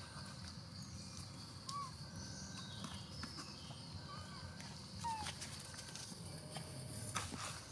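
Quiet outdoor ambience with a steady high drone and three short, faint chirps, then a few scuffs and rustles near the end as the macaques move about on dirt and dry leaves.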